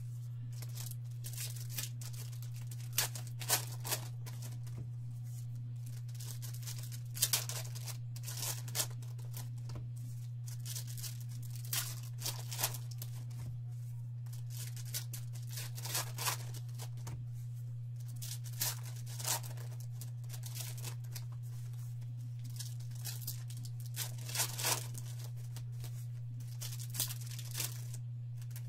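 Foil trading-card pack wrappers being torn open and crinkled, in short ripping bursts every few seconds. A steady low hum runs underneath.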